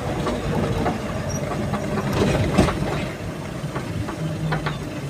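Cab noise of an Eicher truck on the move: the engine runs steadily under a rattle of the cab, with scattered short clicks and knocks.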